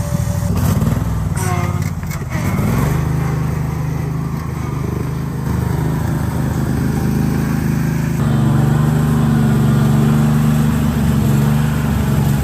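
Small engine of a converted riding lawn mower running steadily under load. About eight seconds in, its note rises and gets a little louder.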